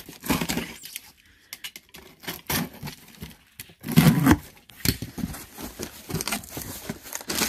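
Utility knife slicing through packing tape along a cardboard box seam, with tape tearing and cardboard scraping. The loudest rip comes about four seconds in, as the cut finishes and the flaps are pulled open.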